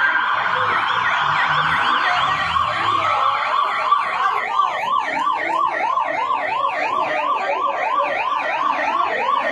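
Police siren yelping, its pitch rising and falling fast, about three sweeps a second, and growing stronger about halfway through.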